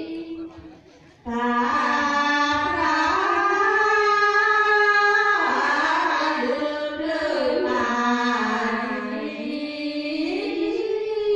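A group of women singing a slow, held melody together in the style of traditional Karen hta verse. They pause briefly about a second in, then take up long sustained notes that step up and down in pitch.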